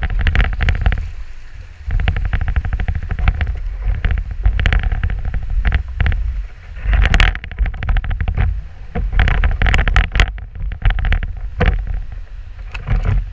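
A sea kayak's hull scraping and crunching over sand and stones in uneven spells as it is hauled up the beach on a line, with strong wind buffeting the microphone.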